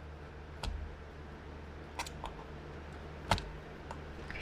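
Hobby knife cutting excess tape around the edge of a taped-over cracked iPad screen: a few short, sharp clicks and taps, the loudest a little past three seconds in, over a low steady hum.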